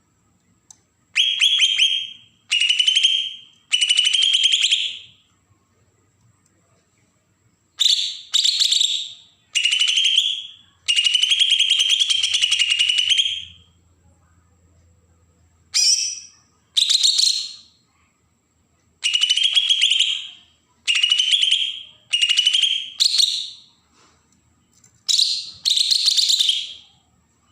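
A green leafbird (cucak ijo, Kalimantan form) giving its harsh, rasping 'besetan' call: a string of buzzy, rapidly pulsed phrases, each one to two seconds long, delivered in clusters with short pauses between them.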